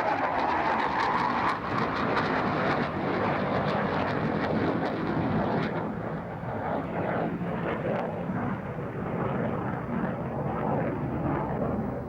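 Twin RB199 turbofan engines of Tornado GR4 jets running, a loud rushing jet noise. About six seconds in, the higher part of the sound dies away and it turns duller and a little quieter.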